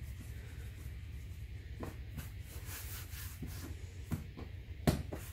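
Hands rolling a strand of challah dough on a floured wooden board: soft rubbing, with a few light knocks and one sharper knock near the end. A steady low hum runs underneath.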